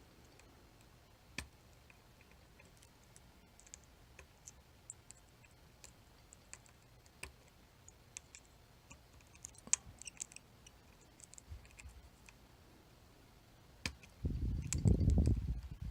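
Scattered small metallic clicks of a pick and tensioner working the pins of a Chicago Ace tubular lock. Near the end there is a louder burst of low handling noise lasting about two seconds.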